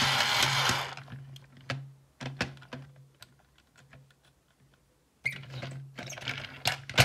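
Plastic buttons on an early-90s Chain Fong bump-and-go toy robot clicking as they are pressed. The toy's motor and gears buzz in short spells, stopping about a second in and starting again about five seconds in; its bump-and-go gear is split. A sharp louder click comes near the end.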